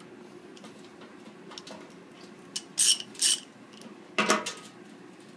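Steel pipe fittings (a coupling, a spacer coupling and nut) clinking together and against a stainless steel keg as they are stacked in place: a few sharp metallic clanks a little past the middle, over a low steady hum.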